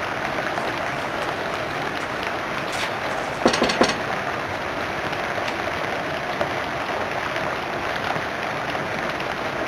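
A quick run of knocks on a wooden panelled door about three and a half seconds in, over a steady hiss of background noise.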